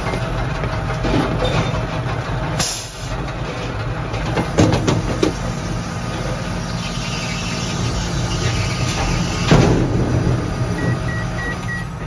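Tractor engine running while a Krone Comprima round baler opens its tailgate and ejects a net-wrapped bale, with loud clunks about three seconds in and again near the end. Four short electronic beeps sound from the baler's control box near the end.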